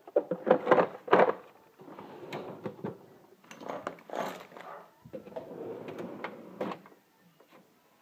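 Handling noises in a steel tool cabinet: a run of knocks and clatters as drawers slide and tools are moved about, loudest in the first second or so, then softer until near the end.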